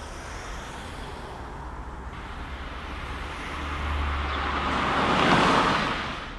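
A car passing by: engine rumble and road noise swell over a few seconds to a peak about five seconds in, then fade quickly, over a steady low street hum.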